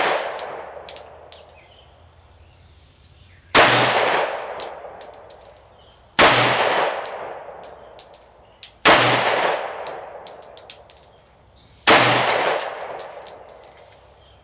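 Glock 19X 9mm pistol firing four slow, evenly spaced shots about two and a half to three seconds apart, each with a long echoing decay, and light ticks after each shot. The echo of a shot fired just before dies away at the start.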